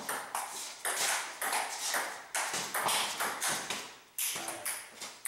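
A table tennis rally: the ball alternately bounces on the table and is struck by the rubber paddles. It makes a quick, steady run of hollow tocks, about two to four a second, each with a short echo off the hard room.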